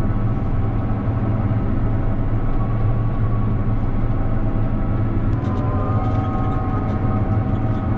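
John Deere S690 combine running steadily, heard from inside the cab, with a higher whine joining about five seconds in.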